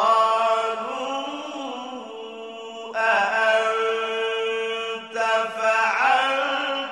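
A man reciting the Quran in a melodic, chanted style, entering suddenly and holding long ornamented notes, with short breaks about three and five seconds in.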